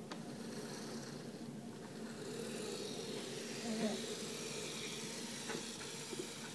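Mint robotic floor sweeper driving across a tile floor, its small drive motors giving a faint, steady whirring hum.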